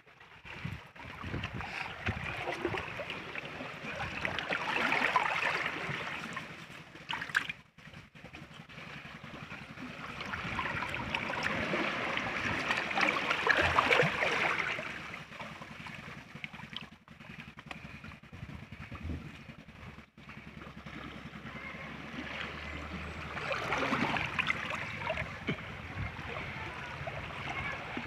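Shallow stream water running and splashing among rocks, swelling louder and easing off a few times. A few short knocks sound around the middle.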